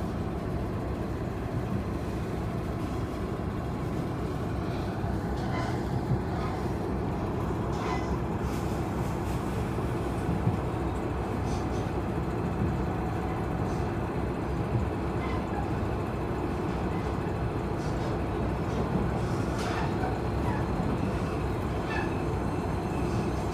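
Passenger train running, heard from inside the carriage: a steady rumble of wheels on rails with a few faint clicks.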